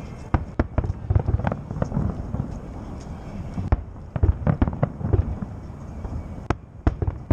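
Fireworks salute: a rapid, irregular series of bangs and crackles from bursting shells, several a second at times, with a short lull about six seconds in.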